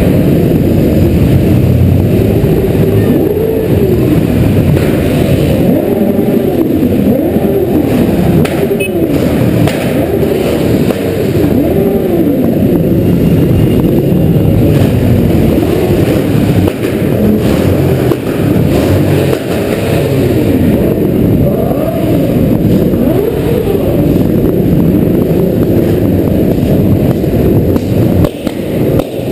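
Yamaha XJ's inline-four motorcycle engine ridden at slow parade pace, heard from the rider's helmet, its pitch rising and falling every second or two as the throttle opens and closes, over the running of the other motorcycles close by.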